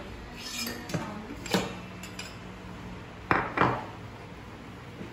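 Metal utensils clinking against stainless steel mixing bowls, a handful of sharp clinks with a short ring after each; the loudest two come close together a little past the middle.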